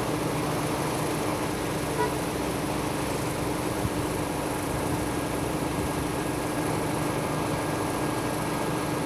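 Steady mechanical hum with a constant low drone and rumble, and a couple of faint clicks about two and four seconds in.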